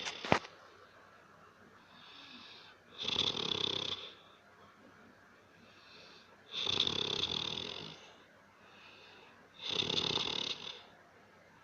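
A person snoring: three loud snores, each about a second long and about three and a half seconds apart, with quieter breaths between them. A sharp click sounds just after the start.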